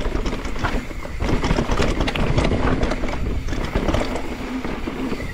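Mountain bike riding down a dry dirt trail: the tyres rumble and crunch over dirt and stones, with a steady run of sharp rattles and knocks from the bike over the bumps.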